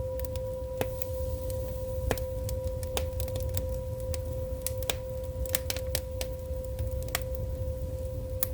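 Firewood burning in an agungi, a Korean wood-fired firebox: irregular sharp crackles and pops over a low rumble of the fire, with a steady high tone underneath.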